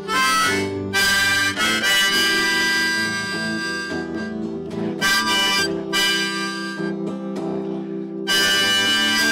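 Harmonica played in a neck rack, a run of held chords that change about once a second, over a strummed acoustic guitar.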